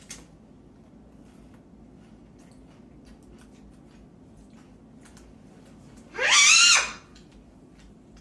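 A girl's short, high-pitched shriek about six seconds in, rising then falling in pitch and lasting under a second, after a stretch with only faint small clicks.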